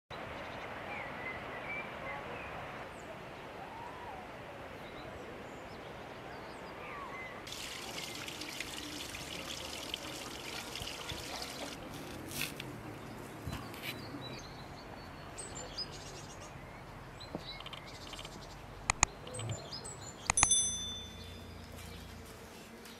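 Outdoor ambience of small birds chirping over a steady rush of flowing water. Near the end come a few sharp clicks and a short, high chime.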